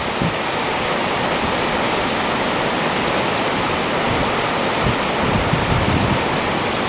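Fast river water rushing and churning steadily through rapids below a weir, a constant full roar of white water.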